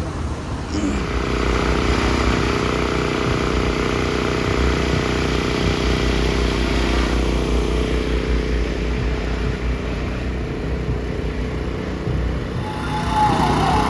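A motor vehicle engine running steadily, deep and heavy in the bass, easing off about twelve seconds in.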